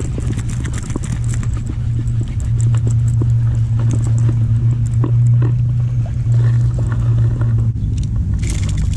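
Baitcasting reel cranked to bring in a small snakehead, with scattered light clicks and knocks over a steady low hum that is loudest in the middle.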